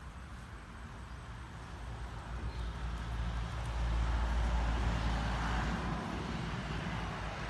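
Low rumble of a passing vehicle, growing from about two seconds in, loudest around four to six seconds, then fading.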